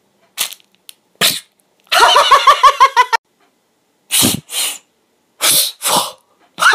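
Several short, sharp puffs of air from a bellows-style foot pump being squeezed. Between them comes a quick run of laugh-like voice pulses, a little over a second long.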